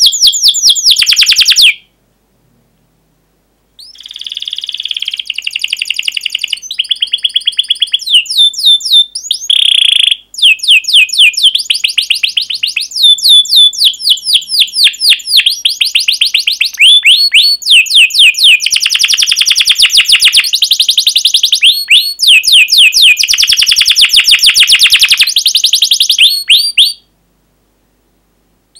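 Domestic canary singing: long runs of rapid, repeated down-slurred chirps and trilled rolls. The song breaks off for about two seconds shortly after the start and again near the end.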